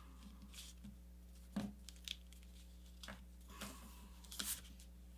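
Faint rustling and scraping of a sheet of paper being creased flat by hand, in about half a dozen short, scattered strokes.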